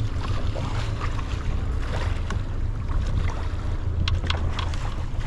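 Fishing boat on the ocean: a steady low rumble of its running motor mixed with wind on the microphone, with a few short sharp clicks about four seconds in.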